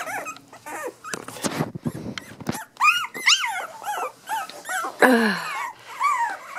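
A litter of three-week-old cavachon puppies crying: many short, high calls that rise and fall, often several at once.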